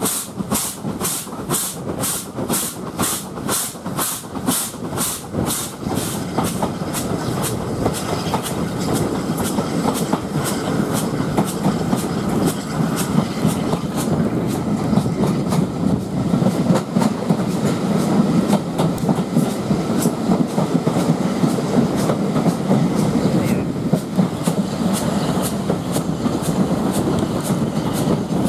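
Steam train on the move behind SR Q class 0-6-0 locomotive 30541. Its exhaust beats, about three a second, fade out over the first several seconds, leaving the steady rumble and clickety-clack of the carriage wheels on the rails, which grows louder.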